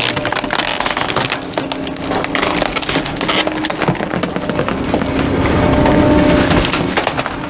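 Wooden furniture frames cracking and splintering as a rear-loader garbage truck's packer crushes a couch in the hopper, with many snaps in quick succession over the truck's steady hum.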